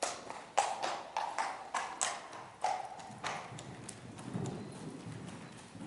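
A pony's hoofbeats as it canters and jumps a showjumping course: a run of sharp, uneven beats over about the first three seconds, then softer.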